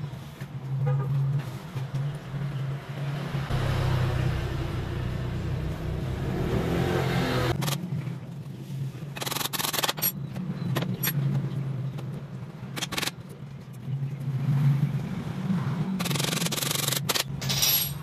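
Wooden birdcage frame parts and thin rods being handled and fitted together, with knocks and scrapes of wood against wood and the tile floor, several louder clatters in the second half. A steady low hum underlies it.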